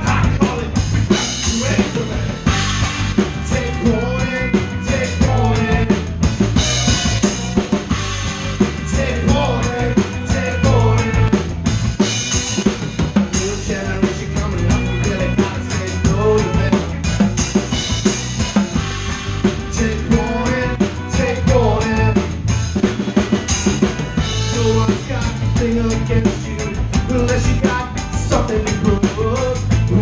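Live ska-punk band playing, heard from right behind the drum kit: drums and cymbals loud in the mix, with electric guitars and saxophone.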